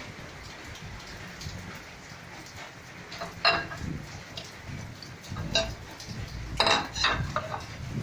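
Dishes and utensils clinking a few times, the sharpest about three and a half seconds in and a pair near the end, over a steady hiss.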